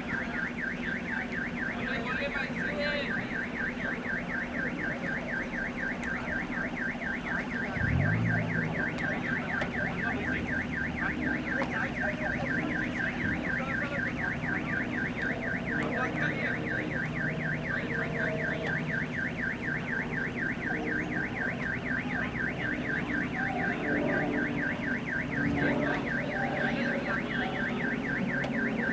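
An electronic alarm warbling in a fast, even repeat without a break, over a steady low hum. A brief louder low rumble comes about eight seconds in.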